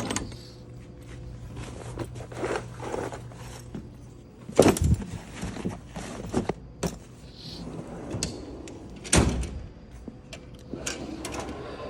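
Steel tool box drawers sliding shut and open, with two heavy thunks, one about halfway through and one later, and lighter clicks and rattles of tools in between.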